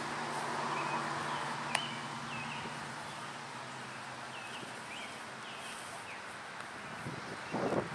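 Open-air background with birds chirping faintly, a steady low hum that fades over the first few seconds, and one sharp click. Near the end, wind gusts rumble on the microphone.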